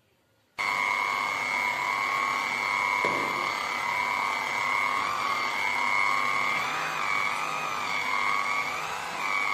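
Electric hand blender with a whipping blade switched on about half a second in and running steadily as it whips cream in a steel bowl, a high motor whine that wavers a little in pitch in the second half as the cream thickens. A brief knock about three seconds in.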